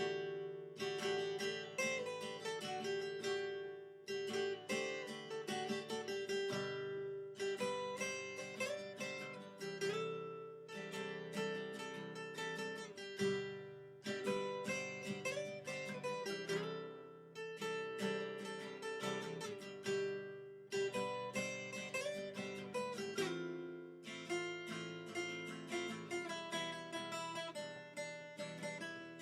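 Background music: acoustic guitar picking and strumming chords, with steady repeated plucked notes.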